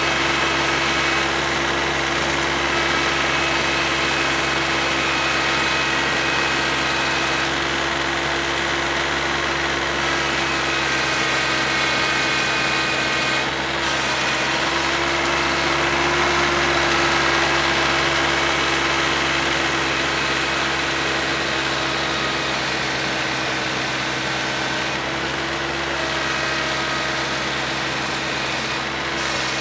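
Kioti CS2210 compact tractor's three-cylinder diesel engine running steadily under load, driving a 48-inch snowblower that is throwing snow, with a whine that comes and goes over the engine note.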